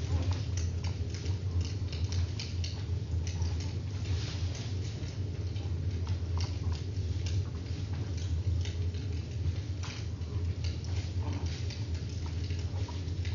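Bare feet tapping and padding irregularly on a wooden floor, with scattered small clicks, over a steady low hum.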